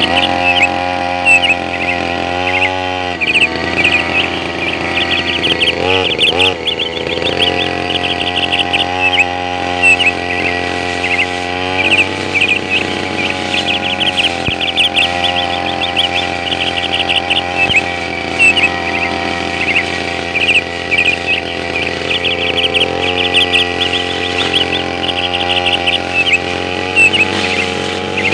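Brush cutter engine running steadily, its pitch dipping briefly and climbing back several times as the throttle eases and opens. Chirping runs through it.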